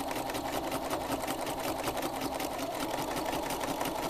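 Sewing machine running steadily at speed, its needle stitching in rapid, even strokes during free-motion quilting, travel-stitching along a marked line.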